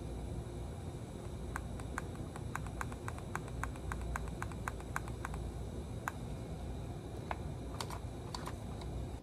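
Light plastic clicks from an Eppendorf multichannel pipette's plunger as it is worked up and down over a strip of PCR tubes: a quick run of about four clicks a second, then a few scattered clicks near the end, over a steady low room hum.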